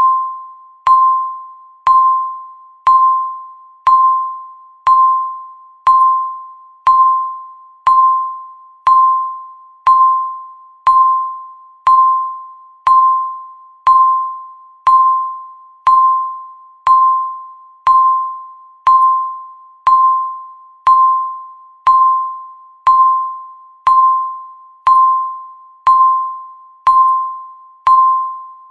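Countdown timer's tick sound marking each second: a click followed by a short ringing chime-like tone that fades quickly, repeated steadily once every second.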